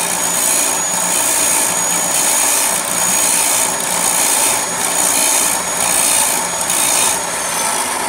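Black & Decker abrasive chop saw running with a length of all-thread rod held against its spinning wheel, grinding the burr off the cut end so a nut will thread on. The grinding swells and fades about once a second as the rod is turned against the wheel. Near the end the noise eases and the motor's whine falls as the saw winds down.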